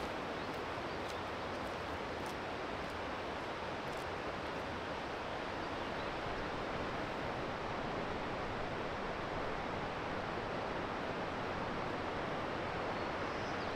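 Steady rush of flowing water at an even level throughout, with a few faint ticks in the first few seconds.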